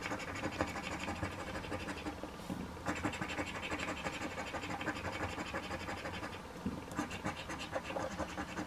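A coin scratching the coating off a scratch-off lottery ticket in quick repeated strokes, easing off briefly twice.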